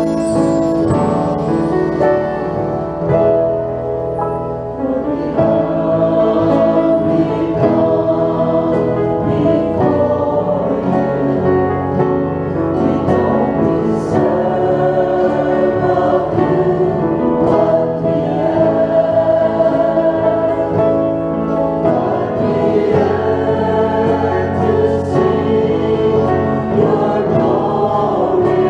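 Mixed church choir of men and women singing a worship song in unison and harmony, accompanied by a grand piano.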